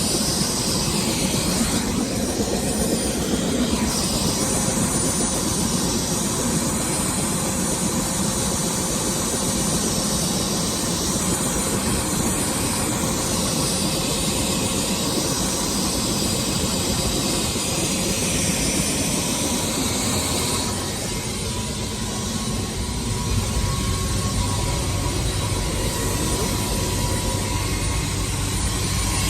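Helicopter engine and rotor noise, a loud steady roar. About two-thirds of the way through it dips a little and turns duller, with a low hum underneath.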